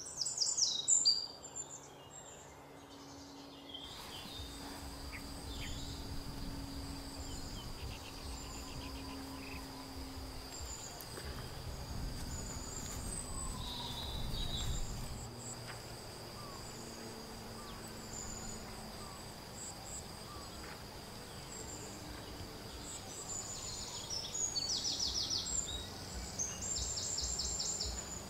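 Countryside ambience dominated by a steady, high, cricket-like insect drone, with scattered short chirps and a low rumble underneath; rapid pulsed chirping trills come near the end. The first few seconds are a separate stretch with a few loud chirps before the insect drone sets in.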